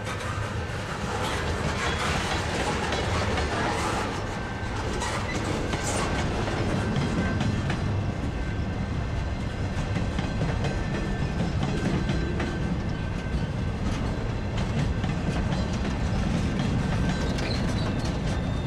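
Freight train cars rolling past at close range: a steady rumble of steel wheels on the rails, with scattered clicks.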